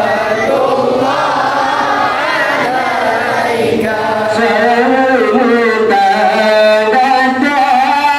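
A group of voices chanting together in a continuous devotional Maulid chant, the melody rising and falling.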